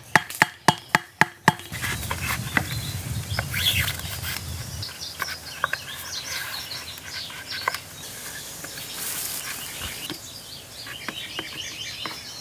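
A machete striking a green bamboo stake in quick, even blows, about four a second, stopping about a second and a half in. Then bamboo poles and dry bamboo leaf litter rustle as they are handled, with birds chirping now and then.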